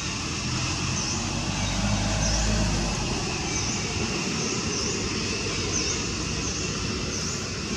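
Outdoor ambience: a steady background hiss, with a short, high dip-and-rise call repeating about once a second. A low hum swells between about one and a half and three seconds in.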